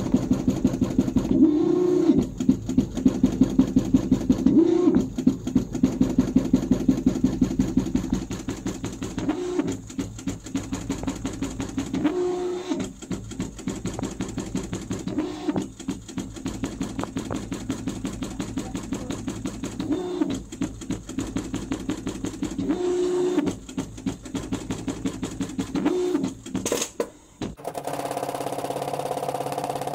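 JUKI PLK-J360 industrial programmable pattern sewing machine stitching at speed, with rapid, even needle strokes and a brief swell in pitch every few seconds. Near the end the stitching stops and a steady hum takes over.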